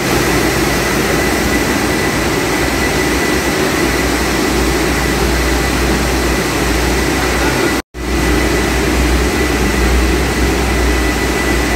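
Steady machinery noise from running French fries production equipment, with a low hum and a thin steady high whine. The sound drops out for an instant about eight seconds in.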